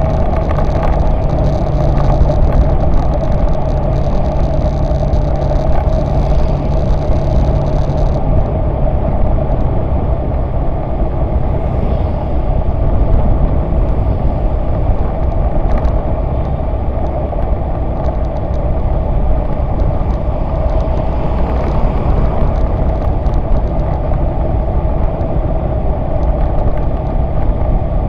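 Motorcycle riding along a road: its engine running steadily under heavy wind rush on the microphone, the engine note changing about eight seconds in.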